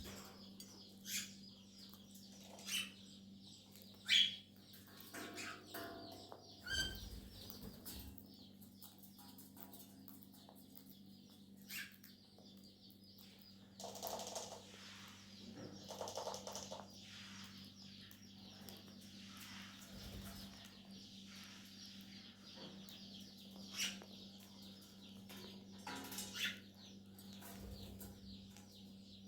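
Cockatiels chirping in short, sharp calls every second or two, with a couple of longer scratchy bursts around the middle, over a steady low hum.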